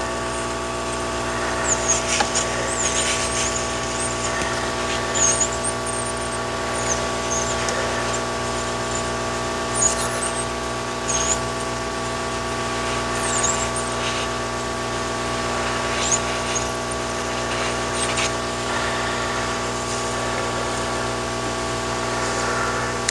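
Handheld hot-air gun blowing steadily while shrinking heat-shrink tubing over a wire splice: a steady airflow rush with its fan motor's hum and whine. Brief high squeaks come and go throughout.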